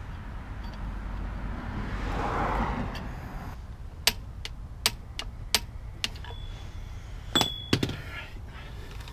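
Sharp metallic clinks and taps, about seven of them spread over a few seconds, one leaving a short ringing tone, as the spindle lock nut and hub hardware are handled and fitted by hand. A brief rush of noise comes about two seconds in, before the clinks.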